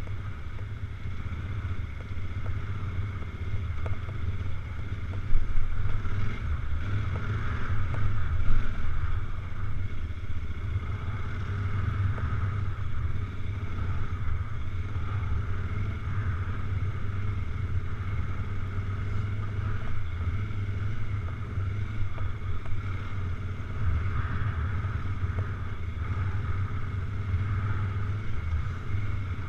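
Adventure motorcycle engine running steadily while riding a sandy dirt track, with wind noise on the microphone. The sound swells briefly twice, about five and eight seconds in.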